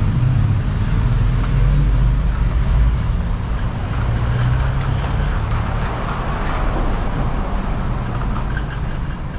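Kick scooter wheels rolling over a paved footpath: a steady low rumble that eases slightly in the second half.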